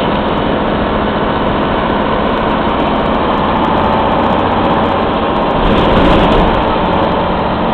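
Old Mack CF fire engine's engine running as the truck drives slowly, heard from inside the cab; a steady, loud sound that swells a little about six seconds in.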